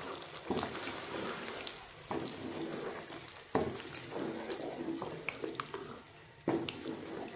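Wooden spoon stirring yogurt into a thick chicken masala in a nonstick wok: wet, squelching stirring noises with several sharp knocks of the spoon against the pan.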